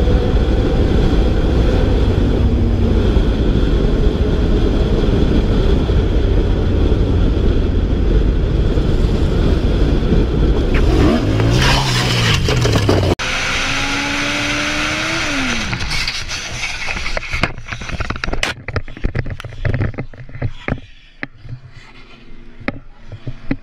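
Motorcycle at speed with a loud, steady rush of engine, road and wind noise. About eleven seconds in comes a brief wavering pitch and a sudden change, as in a crash. A run of scrapes and knocks follows as the bike and camera slide and tumble along the asphalt, thinning out toward the end.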